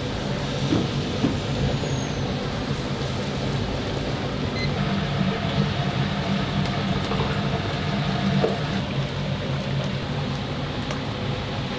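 Battered whole chickens deep-frying in a vat of hot oil: a steady, continuous sizzle and bubbling over a low, steady hum.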